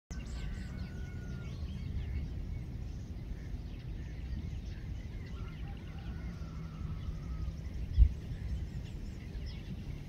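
Outdoor ambience: a steady low rumble of wind on the microphone, with faint birds chirping and two long, thin, slowly falling whistles in the background. A single low thump about eight seconds in.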